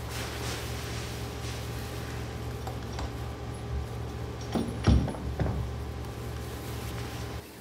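Steady low hum of an injection moulding machine, with a few sharp metal knocks and clunks about five seconds in as the steel mold is set between the platens.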